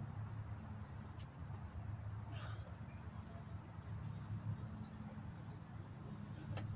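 Wind on the microphone as a steady low rumble, with a few faint high chirps about a second and a half in and again around four seconds.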